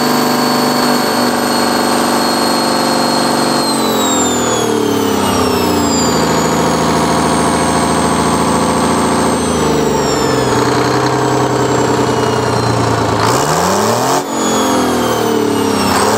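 Detroit Diesel 6-71 turbocharged two-stroke inline-six diesel running. Its speed drops about four seconds in and again around ten seconds, then climbs back near the end, with a high whine that rises and falls with the engine.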